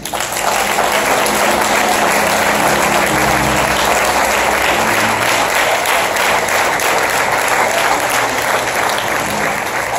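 Congregation applauding, a dense steady clapping that breaks out all at once.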